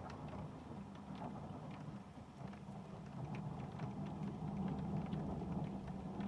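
Thunder rumbling low and long, swelling again about three seconds in, with rain falling and scattered raindrop ticks.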